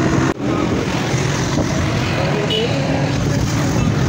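Steady rumble of a moving motorbike and wind on the microphone, mixed with the noise of road traffic around it.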